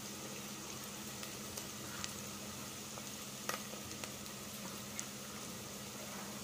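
Chopped onions frying in hot oil in a steel pot: a steady sizzle with a few sharp ticks, the loudest about three and a half seconds in.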